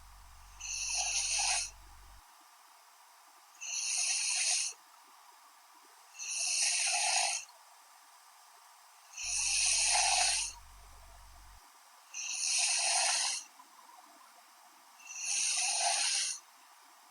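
A young woman snoring in her sleep: a breathy snore about a second long roughly every three seconds, six in all, even and regular.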